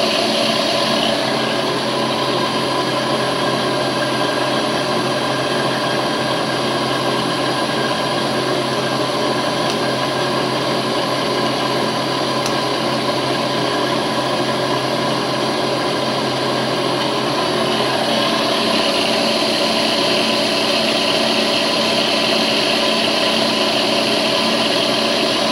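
Vertical milling machine running with its spindle turning, a small cutter feeding slowly down into a small part on fine feed. A steady motor hum, with a higher whine that comes up about eighteen seconds in.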